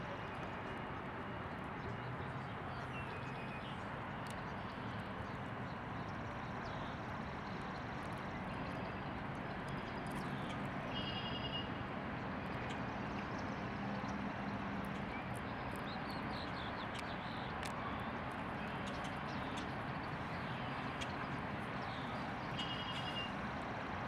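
Outdoor ambience: a steady background noise with a few short bird chirps, two of them clearer, about eleven seconds in and near the end, and faint scattered clicks.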